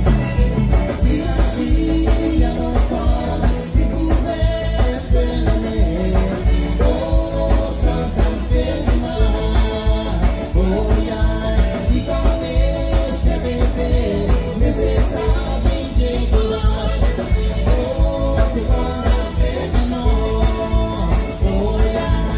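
Live zydeco band playing through a loud stage PA: accordion leading over electric guitar and drum kit, with a steady driving beat.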